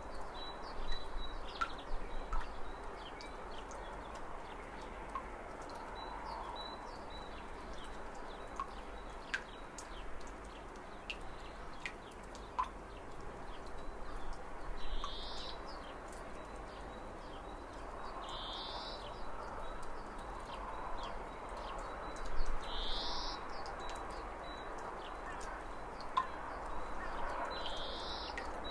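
Wild birds calling: a short rising call comes four times in the second half, a few seconds apart, with scattered faint chirps, over a steady outdoor background hiss.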